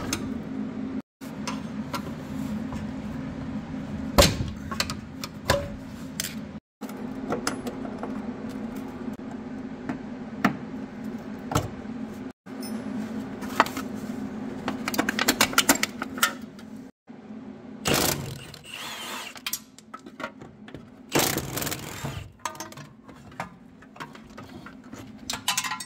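Hand tools, a ratchet and wrenches, clicking and clinking against the bolts of an Integra's rear suspension as the trailing arm is unbolted. The sound comes in short stretches broken by abrupt cuts, over a steady low hum.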